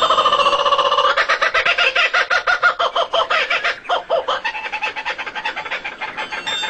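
A bird's rapid, repeated chattering call of about nine pitched notes a second. The pitch shifts about a second in, and the call fades toward the end.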